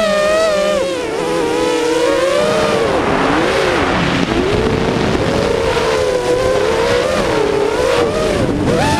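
Five-inch FPV quadcopter's DYS 2306 2500KV brushless motors and propellers whining, the pitch repeatedly swooping down and back up with the throttle and rising sharply near the end.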